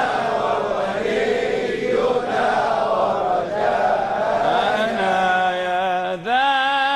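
Devotional chanting: many male voices sing a refrain together in a blurred, reverberant unison. About five seconds in, a single male voice takes over the melody with a long held note.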